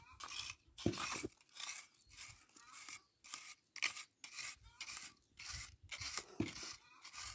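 Small metal hand garden fork digging and scraping through dry, crumbly soil in quick repeated strokes, about three a second.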